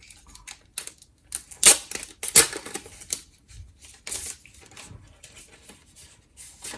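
A plastic disc case and its packaging being handled and opened by hand: a run of rustles, crinkles and sharp clicks, loudest about two seconds in.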